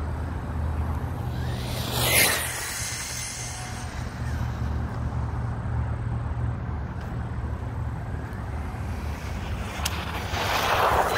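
Brushless-powered 1/10 RC monster truck running flat out on 3S LiPo toward the microphone. Its motor whine and tyre rush swell up and pass close by near the end. A steady wind rumble on the microphone runs underneath, and there is a brief whoosh with a falling pitch about two seconds in.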